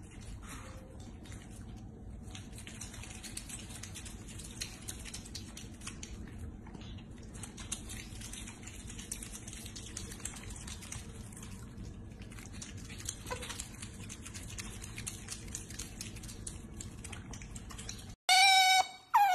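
Pet otter squeaking loudly with high, wavering calls near the end, after a low steady hum with faint scattered clicks.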